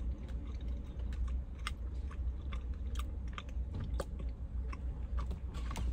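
A person chewing a bite of a hard, crunchy cookie dough protein bar with crisped rice pieces, giving scattered small crunches over a steady low hum. The bar is harder than it should be, which the eater puts down to it having sat on the shelf.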